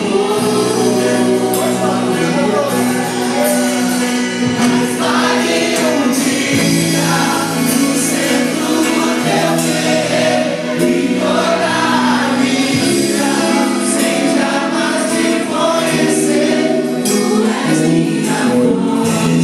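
Portuguese Christian worship song performed live: voices singing together over sustained instrumental accompaniment, with low held notes changing every couple of seconds.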